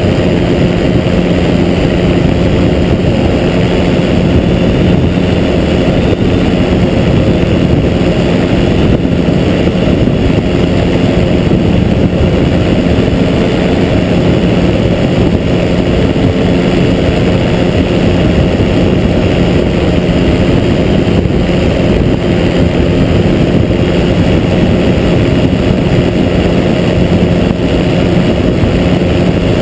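Pegasus Quik flex-wing microlight trike's Rotax 912S four-cylinder engine droning steadily in level cruise.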